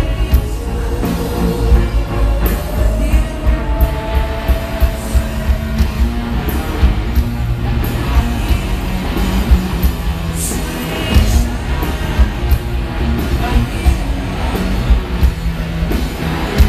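Two-piece rock band playing live: electric guitar over a drum kit keeping a steady beat, with vocals.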